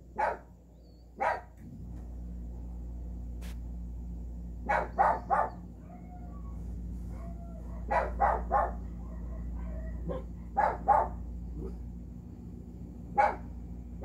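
A dog barking in short bouts of one to three barks, about eleven barks in all, over a steady low hum.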